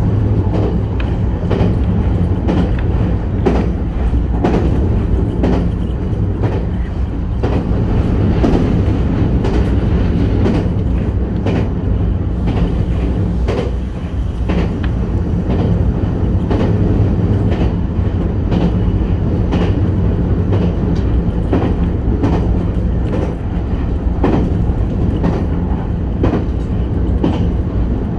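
JR West 521-series electric train running steadily at speed, heard from inside its cab: a continuous low rumble and hum, with frequent clicks from the wheels over the rails.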